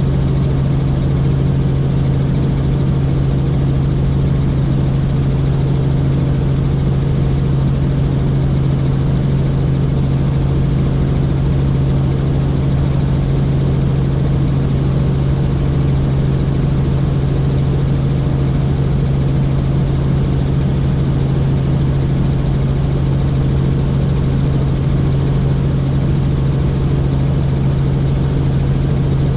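Helicopter in flight, heard from inside: a steady, even drone of turbine and rotor with a strong low hum that doesn't change.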